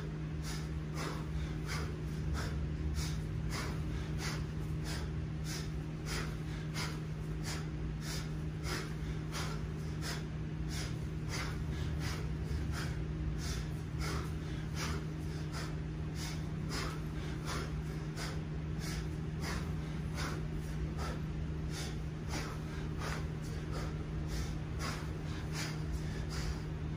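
Sharp, rhythmic breaths through nose and mouth, about two a second, from a man working hard through continuous 20 kg kettlebell snatches, over a steady low hum.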